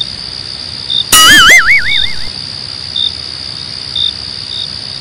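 Crickets chirping against a steady high insect drone, short chirps repeating about once a second. About a second in, a loud, brief sound effect with a wavering, wobbling whistle-like tone cuts across it.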